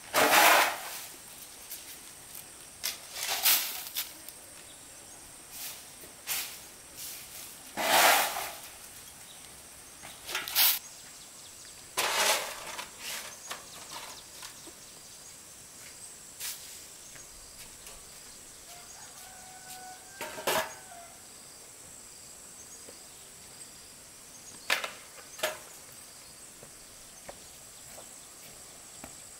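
A hoe-like scraper and a broom scraping and sweeping a damp concrete floor in separate strokes a few seconds apart. The strongest strokes come in the first dozen seconds and fainter ones later.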